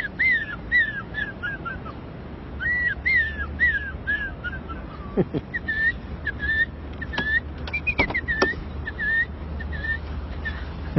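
A man whistling an imitation of birdsong: two runs of slurred chirps that fall in pitch, then a string of short, evenly repeated chirps, with a few sharp clicks in the second half.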